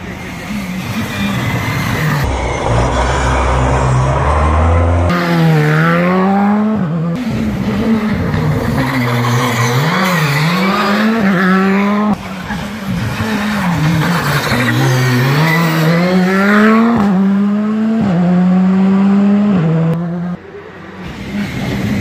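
Rally car engines revving hard through hairpin bends, the pitch climbing and dropping sharply with each gear change and lift off the throttle. Several short passes follow one another, the sound changing abruptly between them.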